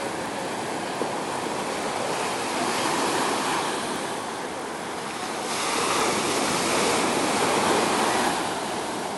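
Ocean surf washing up a sandy beach: a steady rush of breaking waves that swells about three seconds in and again, louder, from just past the middle until near the end.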